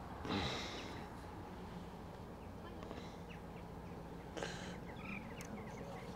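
Steady low engine hum of a passing canal narrowboat, with two short bird calls over it: one right at the start and one about four and a half seconds in.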